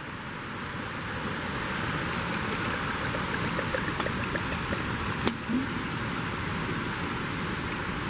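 Water pouring from a canteen into a stainless steel pot of dried potato slices, over the steady rush of a nearby stream. A couple of light clicks come about four and five seconds in.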